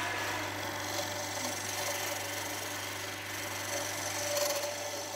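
Wood lathe running with a turning chisel cutting a spinning round wooden spindle: a steady motor hum under an even scraping hiss of the tool on the wood.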